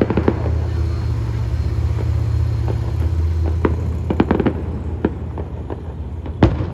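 Fireworks exploding: scattered bangs and crackling pops, a quick cluster about four seconds in and the loudest single bang near the end, over a steady low rumble.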